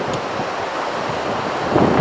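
Heavy surf breaking on a sandy beach: a continuous wash of crashing waves, with wind noise on the microphone. It swells louder near the end as another wave breaks.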